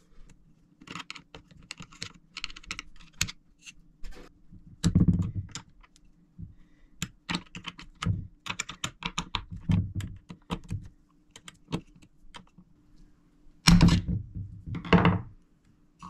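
Hand tools clicking and scraping on a chainsaw's carburetor and metal housing as the carburetor is unscrewed and worked loose. There are many short clicks, a louder knock about five seconds in and two more near the end.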